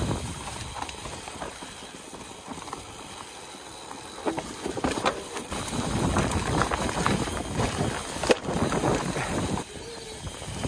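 Mountain bike rolling fast down a leafy dirt trail: steady tyre noise over dirt and leaf litter, with the bike rattling and knocking over bumps. Quieter for the first few seconds, then louder and rougher from about four seconds in, with a few sharp knocks.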